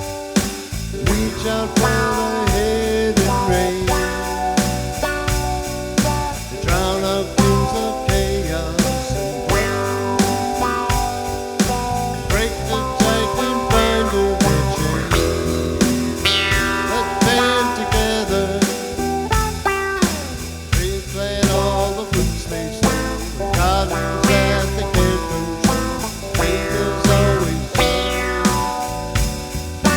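A small string band playing at a steady beat, with strummed guitars and bass.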